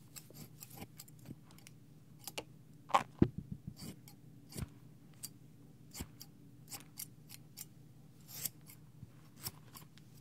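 Scissors snipping close to a binaural microphone in a mimed haircut: a dozen or so irregular, crisp snips, with a quick run of louder ones about three seconds in.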